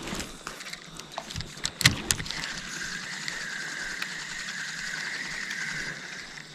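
A fishing reel being wound in during a lure retrieve: a couple of sharp clicks, then a steady mechanical whir of the reel's gears from about two and a half seconds in, stopping near the end.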